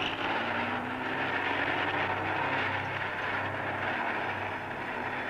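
Road traffic: cars driving past in a steady wash of engine and tyre noise that swells gently as they go by.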